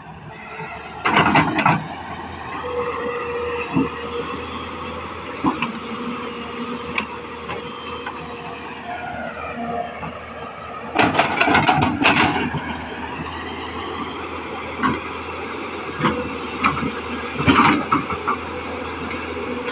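Tata Hitachi FX220LC excavator's diesel engine working under load, its pitch drifting up and down, with bursts of clanking and knocking about a second in, around the middle, and near the end.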